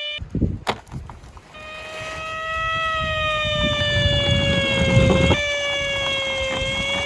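Emergency-vehicle siren: one steady wailing tone that drifts slowly up and down, over a low rumble like a vehicle driving. It breaks off and starts again a little after five seconds in. A single click comes just before the siren starts.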